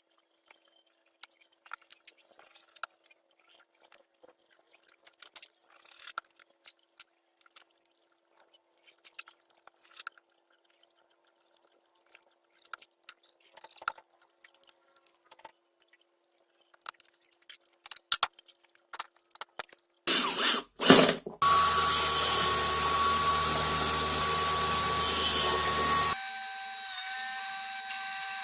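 Sparse light knocks, clicks and short scrapes of hand work for about twenty seconds. Then an electric power tool starts and runs with a steady whine, which drops to a lower note about five seconds later.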